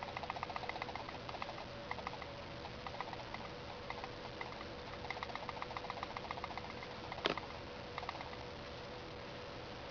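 Loose red REC button on a Dora-Dora dashcam rattling against its housing: runs of fast, light clicking ("kotokoto") with short pauses, one sharper click about seven seconds in, and the rattling stopping near the end. A steady faint hum runs underneath. This rattle is the source of the abnormal noise in the dashcam's recordings.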